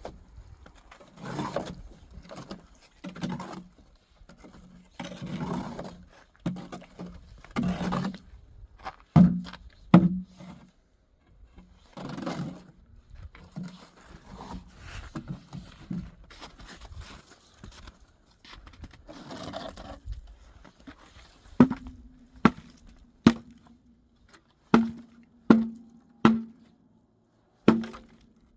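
A metal tool scraping through a sand-and-cement mortar mix in repeated strokes, about one every one to two seconds. Near the end the scraping gives way to sharp knocks, each with a short metallic ring, roughly once a second.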